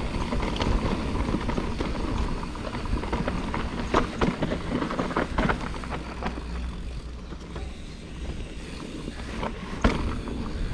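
Mountain bike riding down a rough dirt trail: tyres rumbling over the ground, with the chain and frame rattling and several sharp clacks, the loudest near the end.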